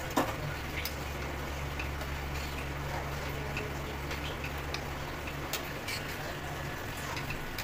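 Matar paneer curry simmering in a kadai on a gas stove: a steady low hum under an even hiss, with scattered sharp ticks and pops, the loudest just after the start.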